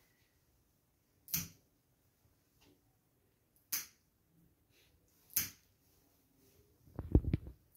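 Pet nail clipper snipping through a cat's claws: three sharp single clicks about two seconds apart. Near the end comes a quick flurry of knocks and handling noise.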